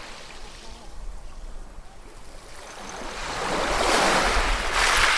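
Ocean surf: a low wash of water, then a wave surges in about three seconds in and is loudest near the end.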